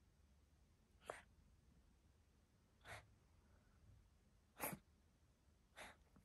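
A cat sneezing four times in a row: short sneezes a second or two apart, the third the loudest.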